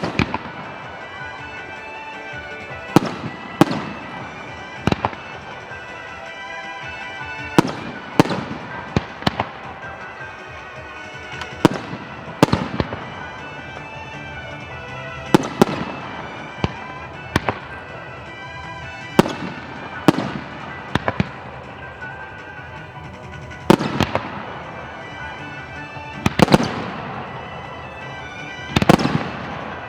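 Aerial fireworks shells bursting: sharp bangs every second or two, some in quick pairs, each with a short echoing tail, over background music.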